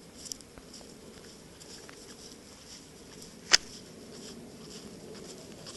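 Faint night-time field ambience with a steady high chirring of insects, broken by one sharp click about three and a half seconds in.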